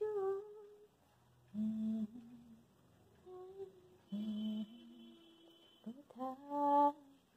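A voice humming a slow melody: single held notes at steady pitches, stepping up and down, with short pauses between them.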